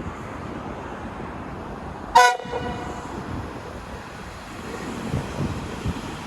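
Swedish train's horn giving one short, sharp toot about two seconds in, over a steady rushing background of wind and rail noise.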